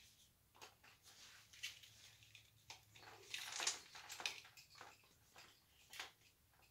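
Faint, scattered rustles and light clicks of small jewelry pieces and their packaging being handled, a few short sounds a second apart, the busiest stretch about three to four seconds in.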